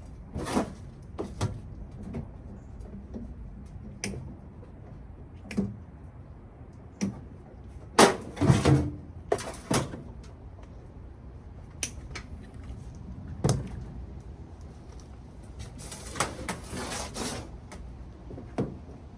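Irregular knocks, clicks and short clattering rattles from a microwave oven's metal casing and parts being pulled apart by hand. The loudest cluster of knocks comes about midway, and a longer rattling stretch follows later.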